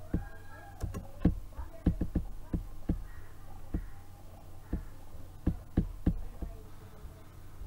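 Computer keyboard keys being typed and a mouse being clicked: a run of irregular, sharp clicks with uneven gaps between them.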